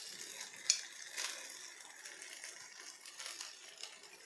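Cooked rice being tipped into a nonstick kadai of sautéed soya chunks and vegetables over a low flame: a faint sizzle with a few light clicks and scrapes, the sharpest click about a second in.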